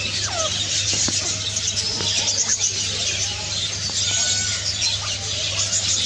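Constant chatter of many small cage birds chirping, with a short falling squeal about half a second in, over a steady low hum.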